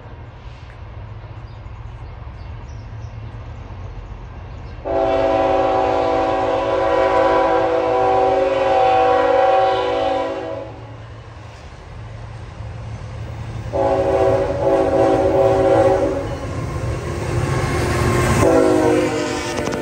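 Canadian National freight train's diesel locomotive horn sounding three blasts: a long one about five seconds in, a shorter one near the middle, and a brief one near the end that drops in pitch as the locomotive passes close by. A steady low rumble of the locomotives and rolling train runs underneath.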